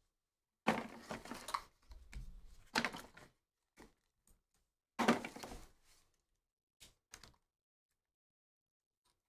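A cardboard trading-card hobby box being opened and a foil-wrapped card pack pulled out and handled: several short bursts of rustling, scraping and crinkling, the loudest about a second in and about five seconds in, with two light clicks soon after.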